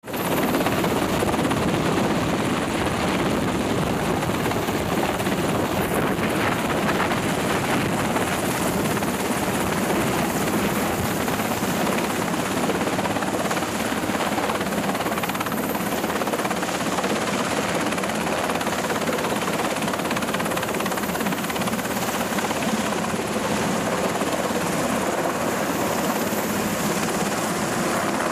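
MH-60R Seahawk helicopter lifting off and hovering close by, its two turboshaft engines and main rotor making a loud, steady noise.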